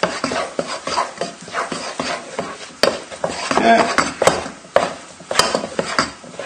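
Wooden spatula stirring mashed potato with butter and milk in a saucepan: irregular, soft, wet scraping strokes, with several sharp knocks of the spatula against the pan.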